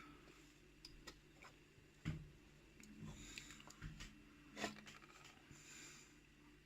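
Faint scattered small clicks and light rubbing of a gutted pin-tumbler lock's plug and parts being handled, the sharpest click about two seconds in, over a faint low hum.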